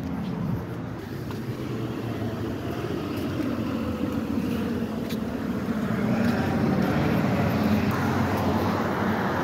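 A heavy vehicle's engine running in street traffic, a low steady rumble that grows louder over the second half as the vehicle draws nearer.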